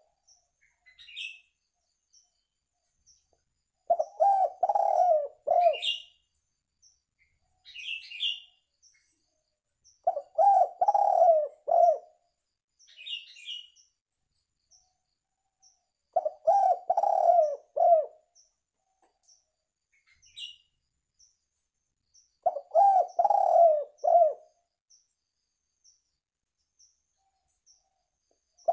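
Spotted dove (tekukur) cooing: a phrase of several low coo notes lasting about two seconds, repeated about every six seconds, four times. Short, higher chirps come between the phrases.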